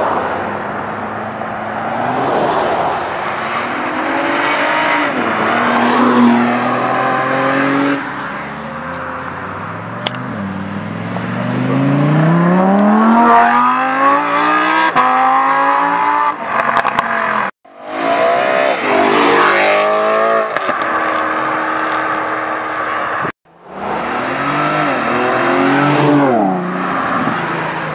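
Lamborghini Huracán Performante's V10 with a Ryft exhaust revving and accelerating hard, its pitch rising and falling several times, with one long steep climb midway. The sound cuts off abruptly twice in the second half.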